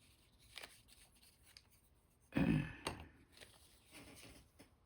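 Faint rustles and light clicks of hands handling a package of small wooden bracing strips for a model building kit, with a short hum of voice about two and a half seconds in.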